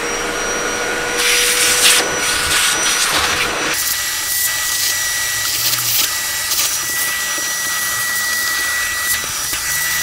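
Vacuum cleaner switched on and running steadily, its nozzle sucking coffee grounds out of an espresso grinder's dosing chute. Its whine shifts in pitch a little under four seconds in.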